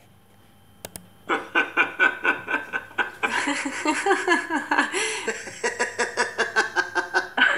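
Human laughter: a rapid run of 'ha-ha' pulses, about four or five a second, starting about a second in and going on without a break.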